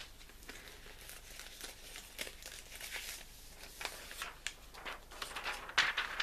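Clear plastic binder sleeves and magazine paper crinkling and rustling in irregular handling noises as pages are turned and a folded poster is pulled out, the loudest rustle near the end.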